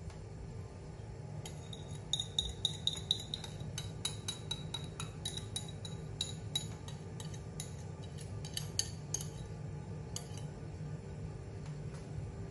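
Wire whisk clinking and scraping against a ceramic bowl as the last of the egg batter is scraped out into the pan: a quick, irregular run of light metallic clinks with a slight ring, starting about a second and a half in and stopping around ten seconds.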